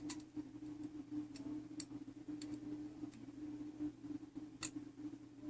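Sparse, irregular light clicks of small metal clock-movement parts being handled, over a steady low hum.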